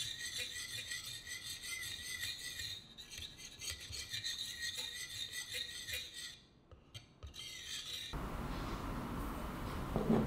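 Steel wire coil of a Danish dough whisk stirring a thin yeast-and-milk liquid, scraping and rubbing against the ceramic bowl. The stirring stops about six seconds in, and near the end a bowl knocks once on the counter.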